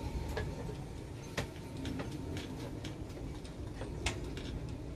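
Scattered light clicks and ticks at an irregular pace, from plastic resin containers being handled, over a steady low rumble.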